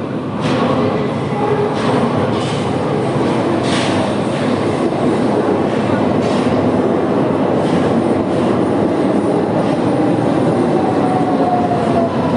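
Train arriving and slowing: a loud, steady rumble of the cars rolling on the rails, with irregular clanks from the wheels. A thin wheel squeal slowly falls in pitch as the train brakes toward a stop.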